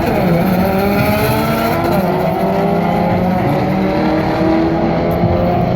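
Drag-racing cars accelerating hard down the strip, their engine notes climbing steadily in pitch with a gear change about two seconds in.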